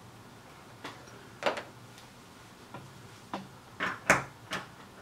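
A string of about eight small clicks and knocks, the loudest about four seconds in, as the soldering iron is put down and the circuit board is taken out of the helping-hands clips and handled.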